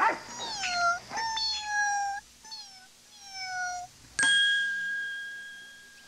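Kitten meowing about four times, drawn-out meows gliding down and up in pitch. About four seconds in, a single chime rings out and slowly fades: the turn-the-page signal of a read-along storybook tape.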